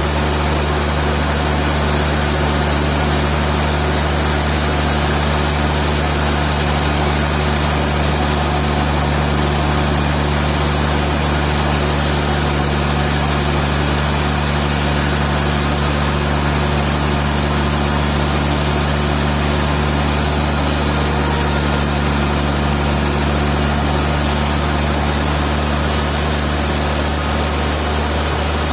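Sawmill machinery running with a loud, steady engine drone and a deep hum that does not change.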